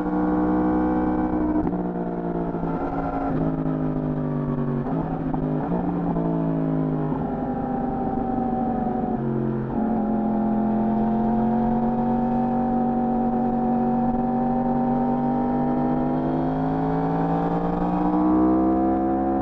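Yamaha R1 sportbike engine pulling on the road, its pitch changing in steps several times as the throttle and gears change, then holding a steady, slowly rising note through the second half.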